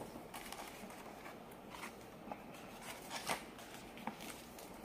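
A picture-book page being turned by hand and pressed flat. A few faint paper rustles and soft taps.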